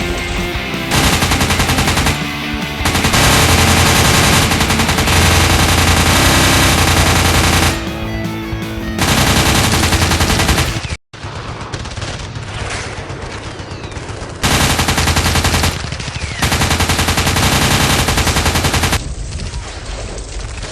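Edited-in machine-gun sound effects: several long bursts of rapid automatic fire, each a few seconds long, with short gaps between them. Background rock music runs under the first half, and the sound cuts out completely for a moment about eleven seconds in.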